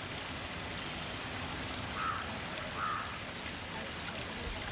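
Steady splashing and lapping of pool water around swimmers, with two short high chirps about two and three seconds in.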